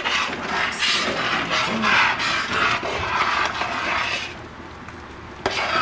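A spoon scraping and stirring in a pot of rice pudding, with a short pause near the end before it starts again.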